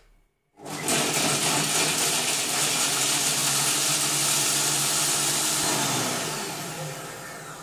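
Silvercrest Monsieur Cuisine Connect kitchen robot running its blade at high speed (set to speed 8 to 10), grinding chunks of pecorino cheese in the steel jar: a loud, steady grinding whir that starts about half a second in and eases off over the last couple of seconds.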